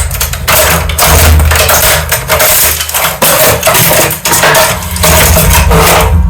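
HP Color LaserJet M255dw printer being crushed under a press: its plastic housing and internal parts crack, snap and crunch in a dense run of cracks and clicks over a steady low hum.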